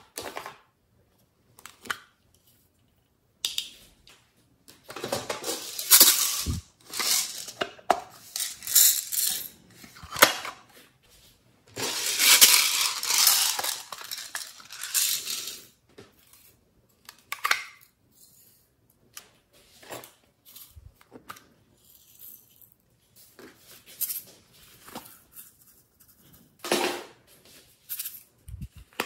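Slime toppings being poured into a glass tray: small plastic pearl beads and sprinkles tip out of plastic containers with a long rattling hiss, twice for several seconds, with scattered clicks and clinks of containers in between. Near the end a small plastic jar is twisted open.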